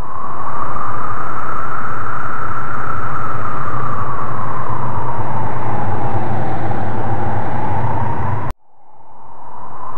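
Looped ambient drone of the background track: a loud whooshing noise over a low hum, with a whistling tone that slowly rises and falls. It cuts off abruptly about eight and a half seconds in as the loop restarts, then fades back up.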